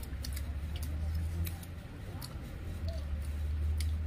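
Someone eating goat-head meat by hand: irregular small clicks and smacks from chewing and picking meat off the bone, over a steady low hum.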